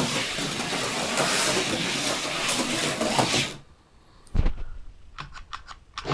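HO-scale slot car running on its track, a steady whirring rattle that stops suddenly a little over halfway through; the car is driven from a controller whose trigger spring has just been repaired. A single knock follows, then a few light clicks.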